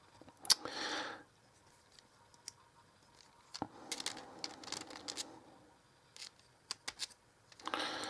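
Faint, scattered clicks and scraping of small metal knife parts being handled and fitted together by hand.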